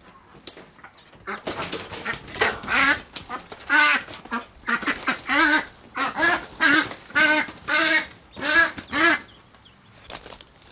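A hen runner duck quacking loudly and repeatedly, about fifteen harsh quacks, some in quick pairs. They start a second or so in and stop about a second before the end.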